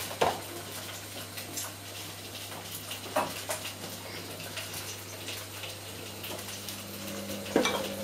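Glass jars and bottles clinking and knocking against each other in a fridge door shelf as a small child handles them, with louder knocks about a quarter second in and around three seconds in. A steady low hum runs underneath.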